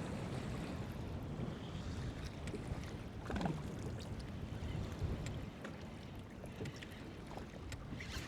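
Wind rumbling on the microphone, with choppy water lapping against a kayak hull.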